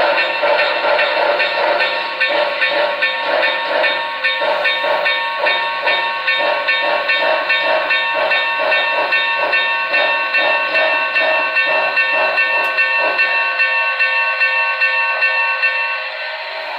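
Digital steam locomotive sound from the DCC sound decoder of an HO-scale N&W Y6b 2-8-8-2 model, played through its small speaker: an even beat of exhaust chuffs with steady high tones held over it. The chuffing stops about thirteen seconds in, and the tones fade a few seconds later.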